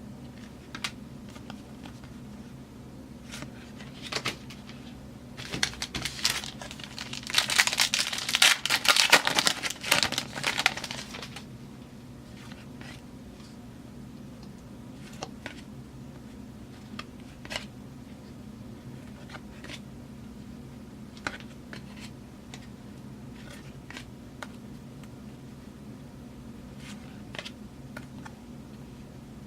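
Foil wrapper of a football card pack crinkling and tearing open for about five seconds, with scattered light clicks and taps of cards being handled before and after. A steady low hum runs underneath.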